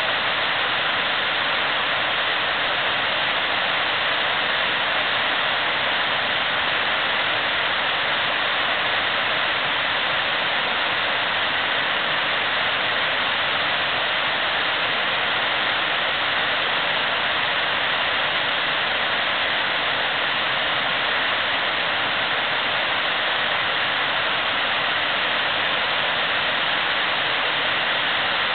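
River water rushing steadily over rapids, an even hiss with no breaks.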